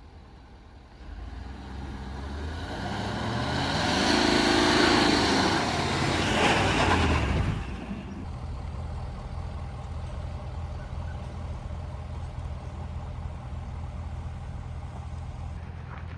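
A motor vehicle passes close by: engine and tyre noise swell, rising then falling in pitch, and stop abruptly about two thirds of the way in. A steady low engine hum follows.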